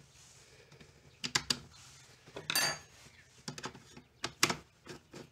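Screwdriver working the small screws that hold the red lens to a plastic scooter trunk lid: a string of sharp clicks and scrapes of metal on screw heads and plastic, with a louder scrape and brief metallic ring about halfway through.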